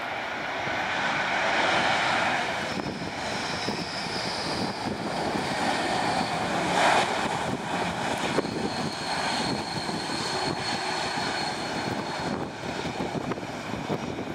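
Airbus A321-211's CFM56 jet engines on the landing roll, a steady rushing noise with a thin high whine, swelling over the first two seconds.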